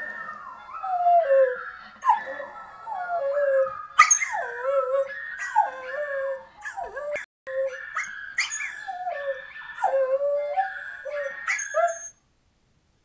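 A dog howling in a run of short howls and yelps, each falling in pitch, about one a second, stopping suddenly near the end.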